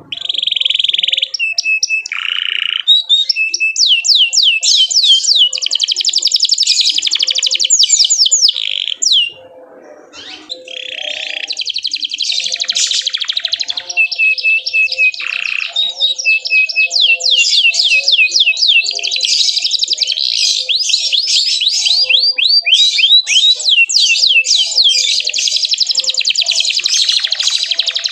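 Domestic canary singing fast, high rolling trills and chirps, broken by a short pause about ten seconds in.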